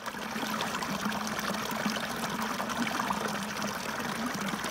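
Shallow stream water running and trickling over rocks, with a steady splashing hiss.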